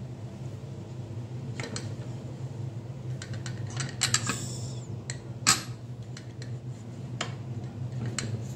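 Aluminium pressure cooker heating on a gas burner: a steady low hum with light, irregular clicks and ticks, one louder click about five seconds in, and a brief faint hiss a little after four seconds.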